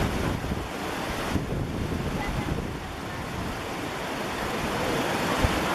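Steady rushing noise of a waterfall, mixed with wind buffeting the microphone.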